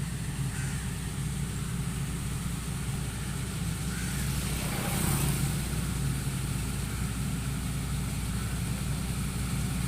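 Harvesting machine's engine running steadily with a low hum and a wash of mechanical noise, swelling briefly about five seconds in.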